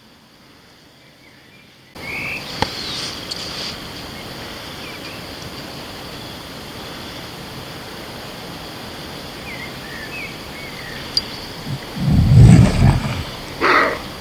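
An unidentified animal gives a loud, deep call near the end, then a shorter, higher call a moment later, over a steady hiss with a few faint chirps. The uploader heard it as something chasing a herd of deer, possibly a dog or the deer themselves.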